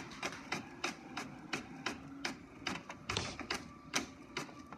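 HP Envy 4520 inkjet printer running its paper feed, drawing a sheet through with a rapid, even series of mechanical clicks, about four a second.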